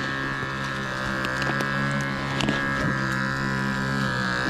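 A steady, high buzzing drone, with scattered clicks and crunches of footsteps on dry leaves and twigs along a forest trail.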